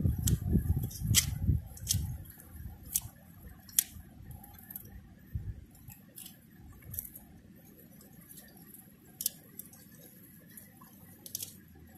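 Small knife cutting and peeling a scallion stalk by hand: scattered single sharp clicks and snips, a few seconds apart, over a faint background hiss. A low thudding fades out in the first two seconds.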